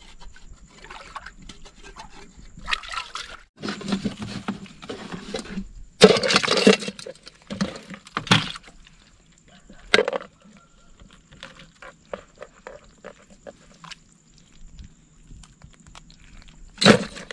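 Water sloshing and pouring in several irregular bursts as a metal cooking pot is dipped and filled with seawater, with a single sharp knock near the end.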